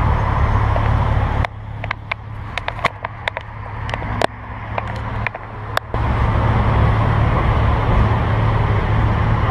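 Steady low rumble of street traffic. For a few seconds in the middle it drops away, and a run of sharp clicks and knocks comes through as the GoPro is handled.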